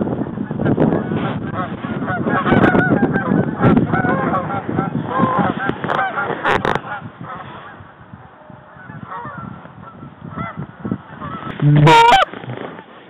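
Canada geese honking overhead, many overlapping calls from a flock that thin out and fade over the first half. Near the end comes a single louder, closer honk.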